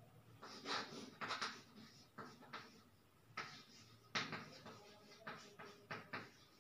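Chalk scratching on a chalkboard as a word is written: a run of short, irregular strokes with brief pauses between letters.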